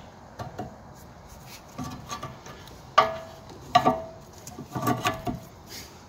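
Metal knocks and clinks of the brake pads' steel backing plates and the cast caliper against the caliper carrier as new rear brake pads are seated and the caliper is swung back over them on an Alfa Romeo rear brake. About nine sharp knocks with a short ring, the loudest about three and four seconds in.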